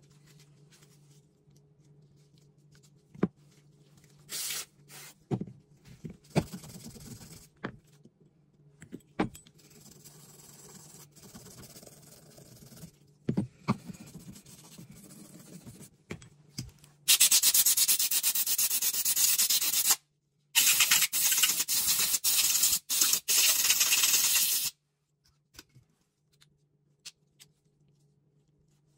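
Small metal gun parts of a stripped Beretta clicking and knocking as the trigger group is handled, then two long bursts of pressurised spray hissing, about three and four seconds, with a short break between.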